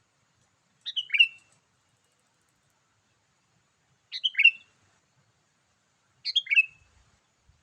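Sooty-headed bulbul (kutilang) song: three short, near-identical phrases a few seconds apart.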